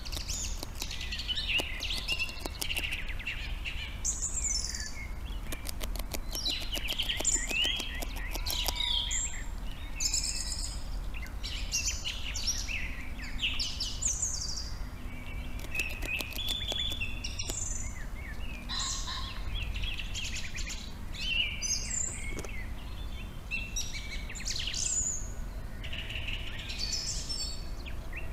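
Several birds singing and calling, overlapping chirps and warbles throughout, over a steady low hum. A quick run of clicks comes around six to nine seconds in.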